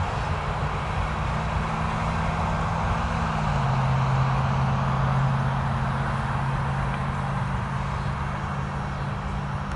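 Road traffic passing: a steady engine hum steps down a little in pitch and grows louder about three and a half seconds in, then slowly fades, over a steady hiss of tyres and distant traffic.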